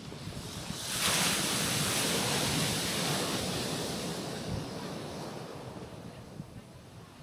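A wave breaking on a rocky shore about a second in, its hissing wash slowly dying away over several seconds.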